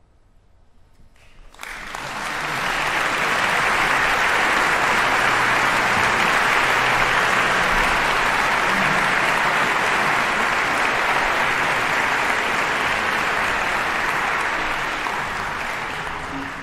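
A brief hush, then a concert audience breaks into applause about a second and a half in; the clapping stays steady and eases slightly near the end.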